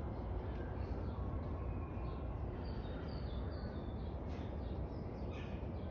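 Birds chirping in short, high notes, a few at a time, over a steady low rumble.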